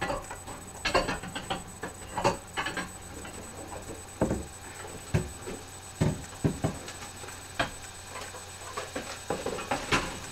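Kitchen handling noise: irregular knocks, clicks and rustles as a microwave bowl and broccoli are got out and handled on the counter, with a few dull thumps in the middle.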